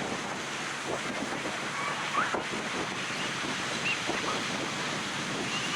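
Ocean surf on a beach: a steady rush of breaking and washing waves, with a few faint, short high-pitched sounds over it.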